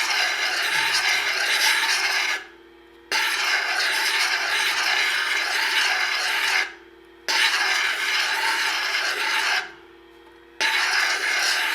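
Turquoise cabochon sanded against a spinning, water-fed 325 mesh diamond resin-bond disc on an Ameritool universal grinder and polisher. A gritty rasping comes in long strokes, cut off by brief lifts, about three times, in which only the machine's steady motor hum remains.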